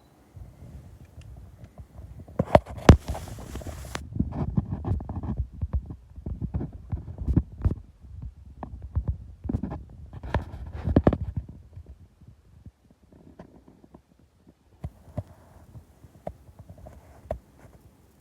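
Handling noises: a run of irregular low thumps and knocks, with a burst of rustling about three seconds in, thinning out to a few faint clicks in the second half.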